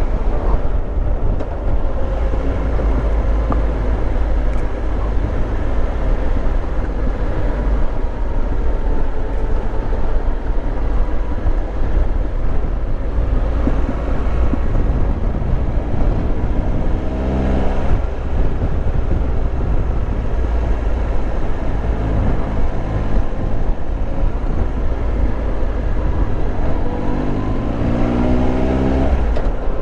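Triumph Tiger Explorer 1200's three-cylinder engine running as the motorcycle rides along, under a heavy steady rumble of wind on the microphone. The engine note rises as the bike accelerates, about halfway through and again near the end.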